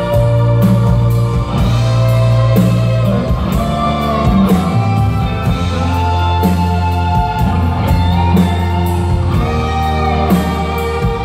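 A rock band playing live, with guitar over long held low bass notes that change every couple of seconds.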